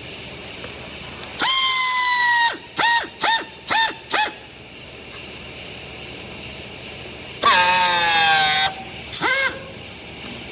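A vehicle horn honking in a pattern: one long honk, four quick short ones, a pause, then another long honk and a short one.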